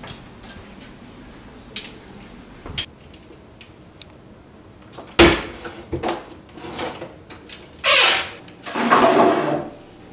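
Kitchen cabinet doors and drawers being opened, shut and rummaged through: a few light clicks, a sharp knock about five seconds in, then two longer rummaging noises near the end.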